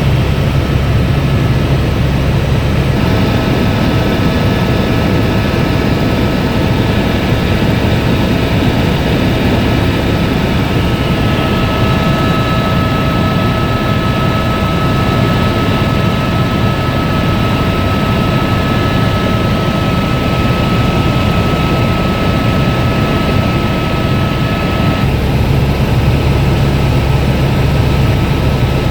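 Helicopter running steadily in flight, a loud continuous drone. A thin high whine rides on it from about three seconds in until near the end.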